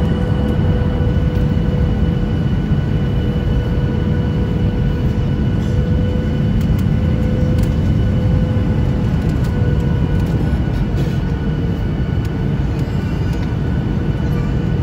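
Steady cabin noise inside a Boeing 737-800: the low rumble of its CFM56 engines and the airflow, with a steady whine over it and a few faint rattles.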